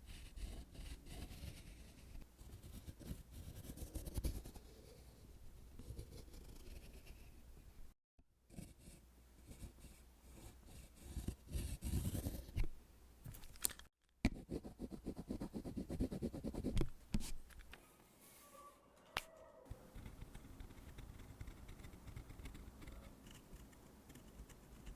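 Scratching strokes of a line-drawing tool dragged across the painting surface, coming in uneven runs. The sound drops out abruptly twice, with a few sharp clicks between the strokes.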